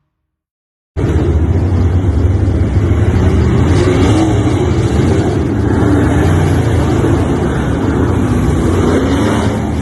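A motor vehicle running steadily, cutting in suddenly about a second in after a moment of silence.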